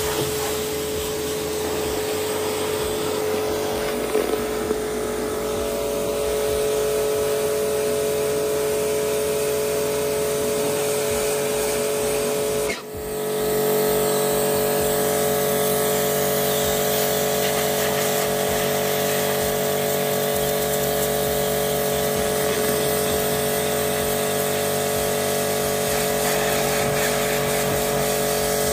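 Electric pressure washer running steadily: its motor and pump give a constant hum over the hiss of the water jet spraying a fibreglass boat hull. The sound drops out for a moment about 13 seconds in, then comes back steady and a little stronger.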